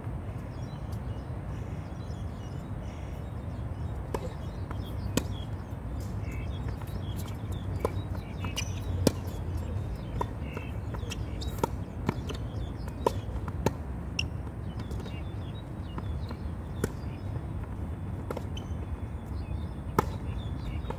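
Tennis balls struck by rackets and bouncing on a hard court during a rally: sharp pops spaced a second or more apart, over a steady low rumble.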